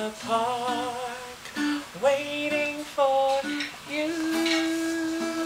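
Acoustic guitar played with a woman singing along, her notes wavering and sliding; about four seconds in she settles into one long held note.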